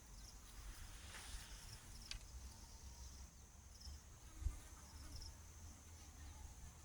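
Faint, steady high-pitched insect trilling in the background, with a low thump about four and a half seconds in.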